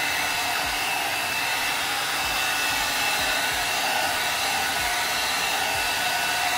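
Hot air brush (blow-dryer brush) running steadily as it is pulled through hair, a loud even rush of air with a faint steady high whine.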